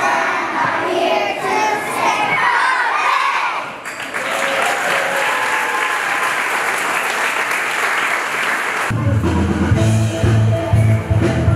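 A group of children's voices calling out together, then applause and cheering from about four seconds in. Near the end, music with a heavy steady bass beat starts.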